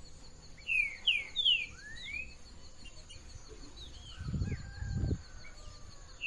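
A songbird singing a clear whistled phrase: three quick down-slurred notes followed by a rising whistle, with softer calls afterwards. Insects keep up a steady high buzz behind it, and a low rumble comes in about four seconds in.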